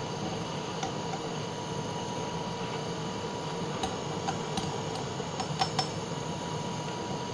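Butane blowtorch running steadily on a crucible of molten silver solder, with a handful of light clinks in the middle of a tool knocking against the quartz crucible while dross is worked out of the melt.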